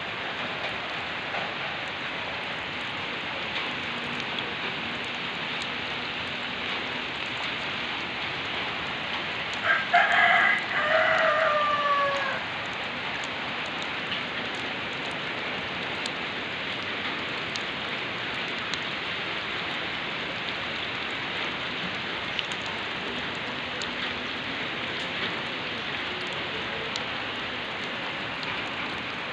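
Steady rain falling on wet ground and puddles. A rooster crows once about ten seconds in, a call of a couple of seconds that falls in pitch at the end.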